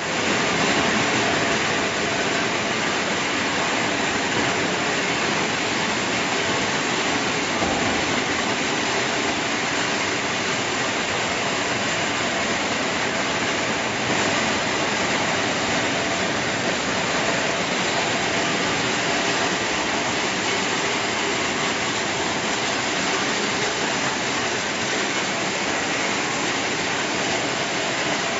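Copper and aluminium radiator recycling line running: the shredding machine and conveyor give a steady, even mechanical noise.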